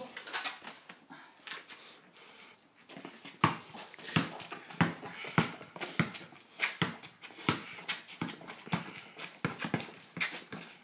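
Basketball being dribbled: a steady run of bounces, about three every two seconds, starting about three seconds in.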